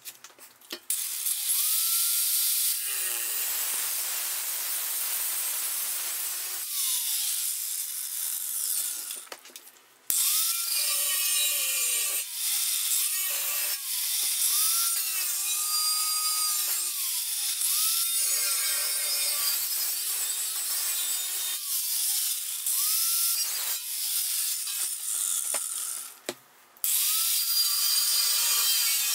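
Angle grinder with a cutting disc cutting through a thin stainless steel container with a loud, high-pitched hiss of disc on metal. It starts about a second in and stops and restarts several times, its motor whine rising as it spins up and falling as it winds down.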